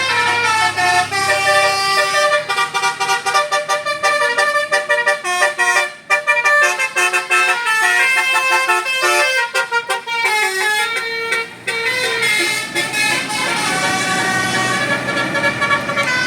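A bus's Basuri telolet horn, a multi-tone musical air horn, playing a melody of fast, short notes that step up and down. The notes become longer and held near the end.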